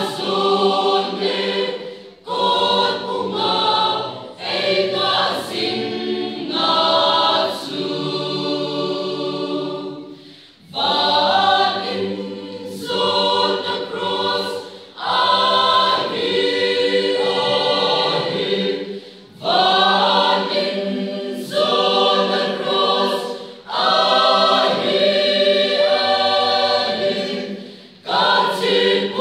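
Mixed choir of young women and men singing together, unaccompanied. The long sung phrases are broken by a few short pauses.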